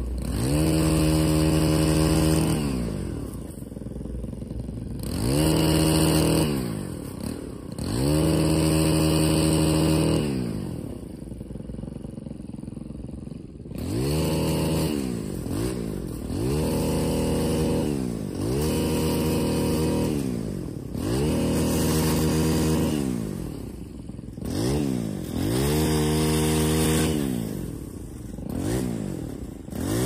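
Small gas engine of a pole saw being throttled up and down in about ten bursts, its pitch climbing as it revs to cut and falling back to idle between cuts.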